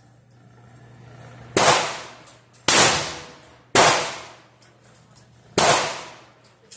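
Four gunshots at a shooting range. Three come about a second apart, then a fourth about two seconds later, each trailing off in a short echo.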